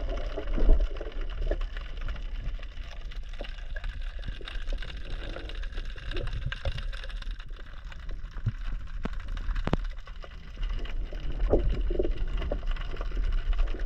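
Muffled sea water sloshing and rumbling, with scattered sharp clicks.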